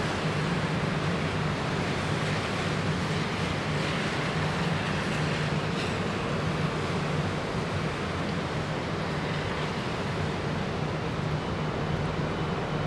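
Steady rushing noise of typhoon wind and weather, with a low steady hum underneath.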